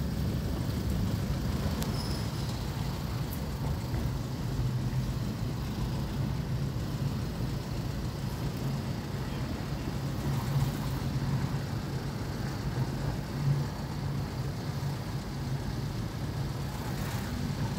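Car driving at a steady speed, heard from inside the cabin: a steady low engine hum with road and tyre noise.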